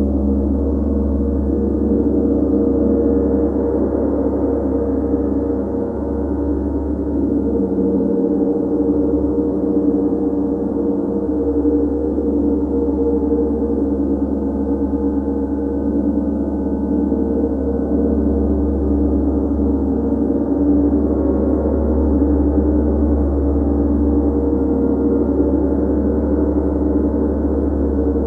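Large tam-tam (chau gong) kept sounding with a soft mallet: a steady, sustained wash of many overlapping tones, with no single strike standing out.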